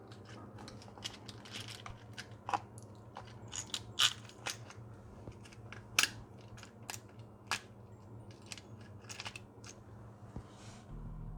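Irregular sharp clicks and taps of metal tools and bolts being handled, the loudest about 4 and 6 seconds in, over a faint steady hum.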